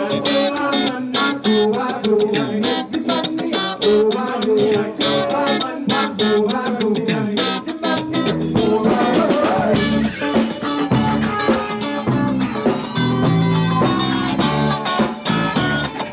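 Live band playing a world-beat rock song, with the guitar to the fore over a steady drum groove; the bass grows heavier about eleven seconds in.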